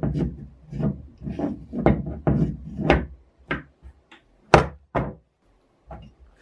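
Antique bottle corker being handled: its metal lever and jaws clunking and knocking against each other and the wooden tabletop, about a dozen knocks in the first five seconds, the loudest about four and a half seconds in, then a few faint clicks.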